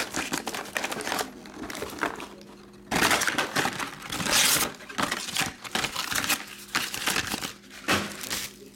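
Foil wrappers of 2021 Upper Deck Goodwin Champions card packs crinkling and rustling as the packs are handled and stacked, in irregular bursts, loudest around the middle.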